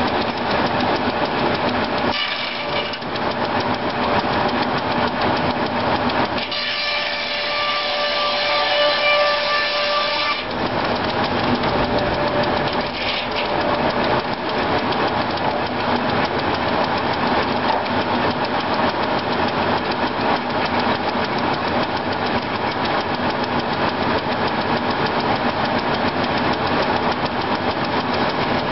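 An old circular sawmill running: the large saw blade spinning with its drive machinery, a loud steady mechanical din. From about seven to ten seconds in the deep rumble falls away and a steady ringing whine comes through.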